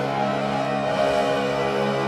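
Show soundtrack music with long held chords.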